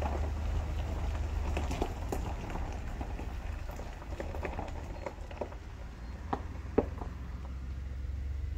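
A vehicle driving along: a steady low rumble of engine and tyres, with scattered small ticks and pops and one sharper click about two-thirds of the way through.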